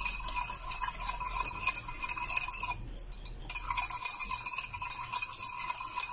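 Metal spoon stirring a thin liquid sauce in a bowl, clinking and scraping against the bowl in quick repeated strokes, with a steady ring from the bowl. The stirring pauses briefly a little before halfway.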